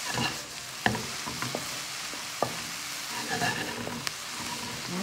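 Sliced vegetables sizzling in a hot nonstick wok as a spatula stirs and tosses them. A few sharp knocks of the spatula against the pan, about a second in, again near two and a half seconds and near four seconds.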